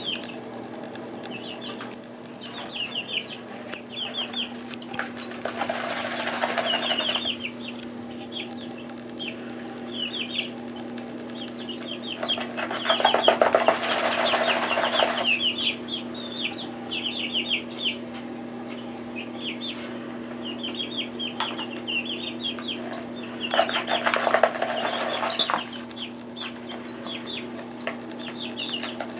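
Four-week-old chicks peeping over and over in short, falling high notes while dust bathing. Three times, for a couple of seconds each, there is a loud rustling scratch as they flap and kick in the sand and dirt. A steady low hum runs underneath.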